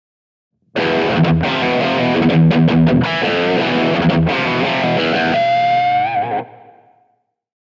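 Telecaster-style electric guitar played through a Kemper amp profiler alone, without the Oxygen valve preamp. A phrase starts suddenly about a second in and ends on a long held note with vibrato, which fades out about seven seconds in.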